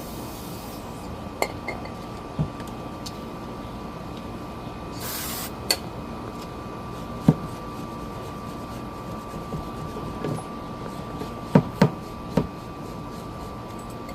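Scattered sharp metallic clicks and knocks of hand tools and brake parts being handled, over a steady background hiss with a faint steady whine. There is a short hiss about five seconds in.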